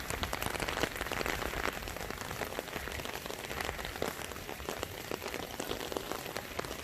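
Steady rain falling, with many sharp separate drop hits.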